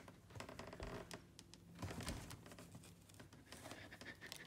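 Faint crinkling and rustling with scattered light clicks, over a faint steady low hum.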